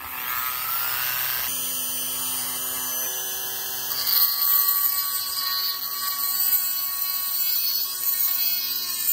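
Small cordless rotary tool spinning up with a rising whine, then running steadily at high speed. About four seconds in, its small grinding bit goes into the end of a silver tobacco pipe, adding a grinding hiss on the metal.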